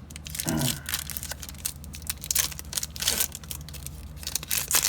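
Foil trading-card pack wrapper being torn open and crinkled in the hands: a run of irregular sharp crackles and rustles.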